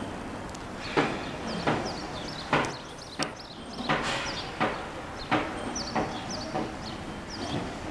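A steady series of sharp knocks, about one every two-thirds of a second, with short high chirps between them.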